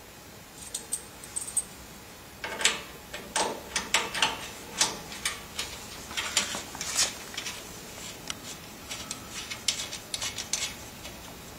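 Metal cable connectors clicking and rattling as they are pushed onto and screwed onto sockets on the rear panel of a laser welding machine. Irregular clicks, a few at first, then thick and fast from about two seconds in.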